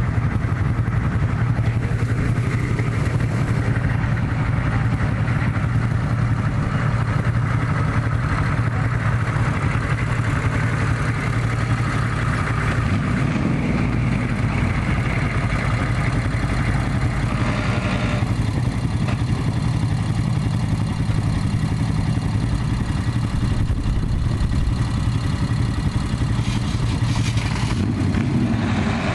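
A vehicle engine running steadily close by, a constant low hum with no clear revving.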